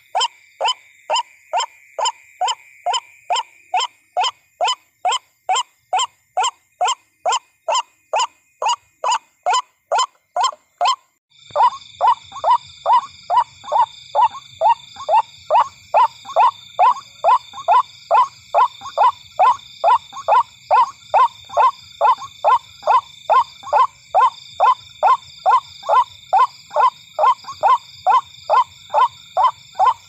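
White-breasted waterhen calling a fast, monotonous series of short harsh notes, about three a second, on and on. About eleven seconds in the background changes abruptly, and a steady high-pitched buzz and a low hum join in behind the calls.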